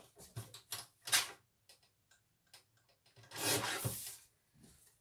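Card being cut by hand: a run of small clicks and taps, then a longer rasping cut about three seconds in.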